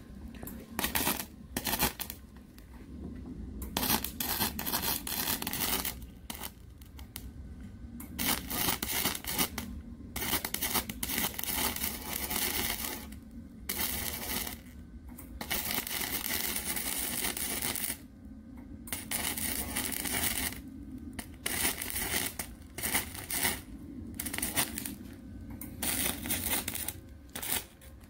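Gasless flux-core wire (MIG) welder's arc crackling as it welds square steel tubing, in a run of welds broken by short pauses of about a second.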